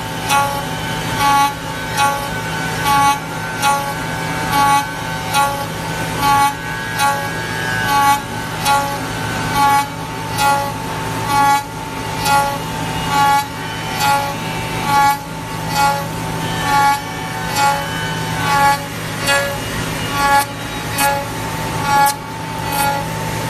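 Changfeng CF-MASTERT2-28 5-axis CNC router machining a wooden workpiece: the spindle whines steadily over a low hum, and the cutting noise surges in regular pulses a little more than once a second.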